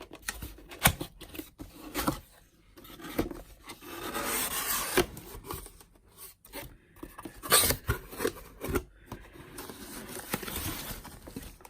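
Cardboard packaging being opened and handled by hand: long scraping and rubbing noises of box flaps and wrapping, broken by scattered knocks and taps.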